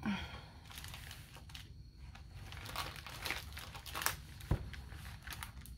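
Crinkling and rustling of a white drawstring bag being pulled off a rolled diamond-painting canvas, in irregular crackles, with one sharp click about four and a half seconds in.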